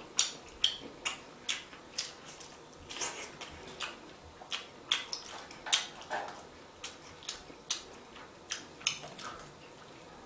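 Close-up eating sounds: wet chewing and lip smacks on roast chicken drumstick, with chopsticks picking at the meat, making an irregular run of short clicks that thins out near the end.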